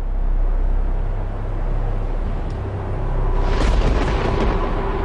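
Deep, steady rumble of thunder that swells about three and a half seconds in, with a low sustained musical drone coming in during the second half.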